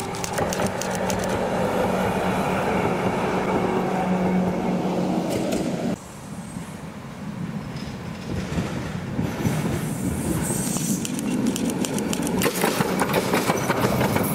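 E1 tram running on street track: wheel and rail noise with a steady hum. About six seconds in the sound cuts abruptly to a quieter passage that builds up again, ending in runs of rapid clicks as wheels pass over track joints.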